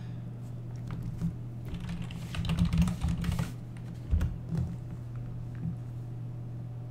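Hand handling noise: a run of soft clicks and rustles, then a low thump about four seconds in, over a steady low electrical hum.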